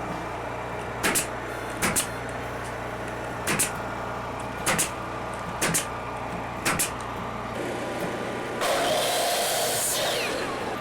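Hammer blows, mostly quick double strikes about a second apart, driving nails into wooden window trim, over a steady low hum. Near the end a louder hissing rush lasts about a second and a half.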